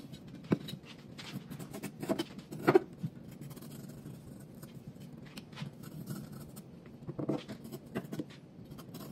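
Chef's knife slicing the rind off a half Charentais melon on a bamboo cutting board. Scattered short scraping cuts and taps of the blade on the board come in clusters, with a quieter stretch in the middle.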